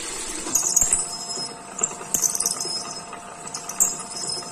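PM-200 milling machine drilling a hole in steel plate: the spindle runs with a steady hum, and three bursts of high-pitched metal-on-metal screeching come as the drill cuts and chips are scraped at the bit.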